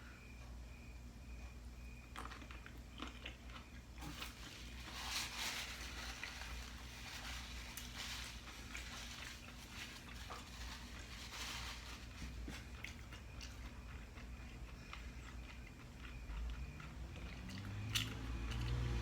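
Close-up chewing and mouth sounds of someone eating, with scattered soft smacks and small clicks.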